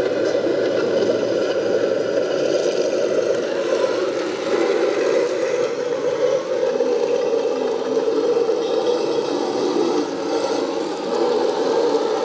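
Radio-controlled model tanks driving, a steady whir of drive gearing with the tracks rattling and scraping.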